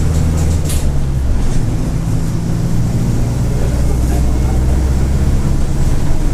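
Mercedes-Benz OF-1722M bus's diesel engine running steadily with a low drone, plus a short hiss near the start.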